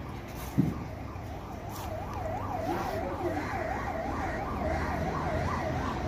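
A siren sounding in a rapid rise-and-fall yelp, about three sweeps a second, coming in about a second and a half in and growing slightly louder. A single dull knock just before it.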